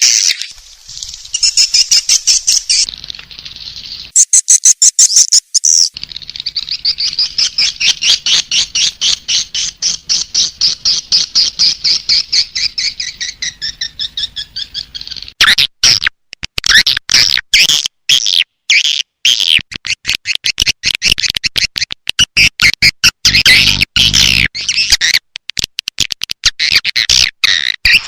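Swiftlet lure call: dense, rapid twittering chirps of swiftlets, a recording made to attract swiftlets to a nesting house. There are short bursts of clicking chirps at first, then a long fast pulsing twitter that rises and falls in pitch. After about fifteen seconds come louder, separate chirps.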